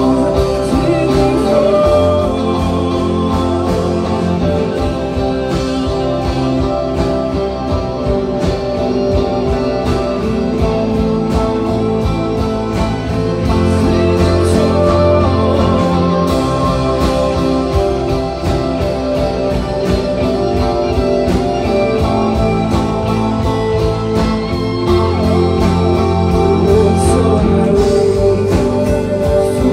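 Live worship band playing a slow song on electric guitars and keyboard, with singing at times.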